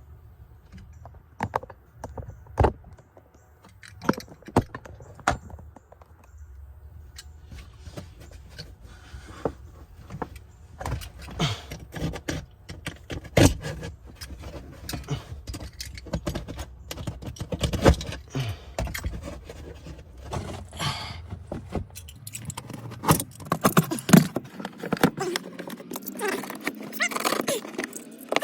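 Metal hand tools clinking and knocking irregularly while the rear strut-tower nuts of a Honda Civic are being loosened, with sharp clicks and knocks scattered throughout.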